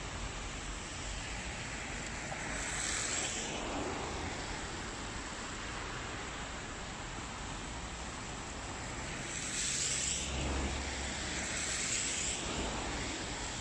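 Steady outdoor hiss of traffic on wet, snowy roads, with two vehicles swishing past, about three seconds in and again about ten seconds in, the second with a low rumble.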